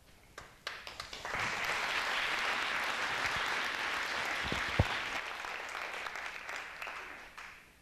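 Audience applauding: a few scattered claps grow within about a second into steady applause, which tapers off near the end. A low thump sounds about halfway through.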